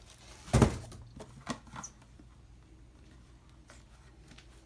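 Handling sounds on a plastic mini fridge: one solid knock about half a second in, then a few light clicks and taps.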